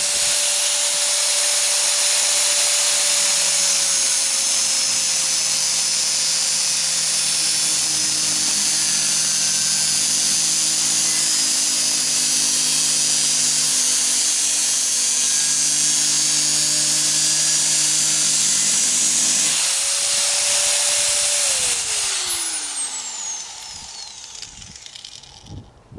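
Electric power tool running steadily under load on the sheet metal of a square tin can, with a loud hiss over a steady motor whine. About 21 seconds in it is switched off and winds down, its pitch falling as the noise fades away.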